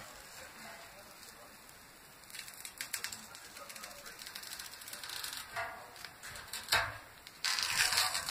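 Tape being peeled off a spray-painted surface in several short crackling pulls, the longest and loudest near the end, with one sharper knock shortly before it.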